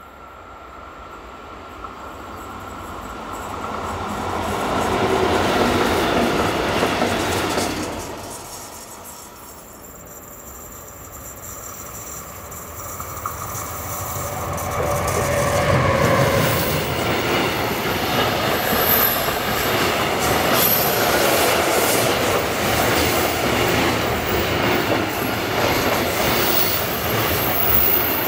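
A train approaches and its rumble grows, then falls away about eight seconds in. An electric-hauled intermodal freight train, an SBB Cargo International Vectron with container and tank wagons, then comes up and passes close by. Its wheels rumble and clatter over the rails, with thin, high wheel squeal on the curve in the second half.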